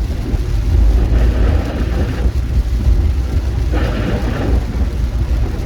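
Steady low rumble of a vehicle driving through a thunderstorm in rain, heard from inside. A hiss of rain or road spray swells twice, about a second in and again near four seconds.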